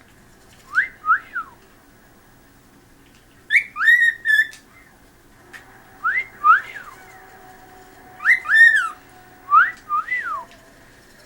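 Cockatiel whistling its song: short phrases of two or three swooping, rising-and-falling whistled notes, repeated about five times with pauses between.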